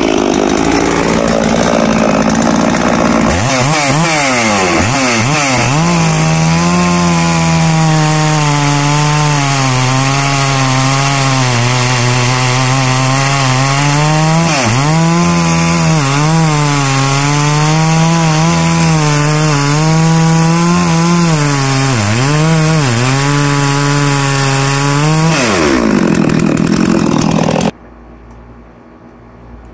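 Holzfforma G660 chainsaw, a Chinese clone of the Stihl 066, running new out of the box on its factory carburettor settings. It cuts through a log at full throttle, its engine pitch dipping under load and recovering again and again. Near the end the revs climb, then the sound drops away abruptly.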